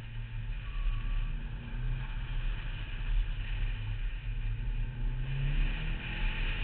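Car engine working hard through an autocross cone course, its pitch rising and falling as the car accelerates and slows between cones, over a steady hiss of wind and tyre noise.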